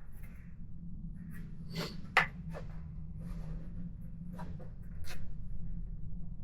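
Scattered small clicks and rubbing of rubber grommets being worked by hand into the bolt holes of a plastic motorcycle windshield, with one sharp click about two seconds in, over a steady low hum.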